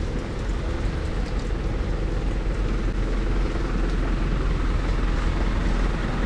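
Steady low rumble of a motor vehicle engine running close by, over general street noise.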